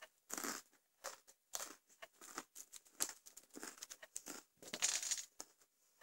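Thin salty pretzel sticks being crunched and chewed in quick, irregular bursts of crackling, mouthful after mouthful eaten as fast as possible.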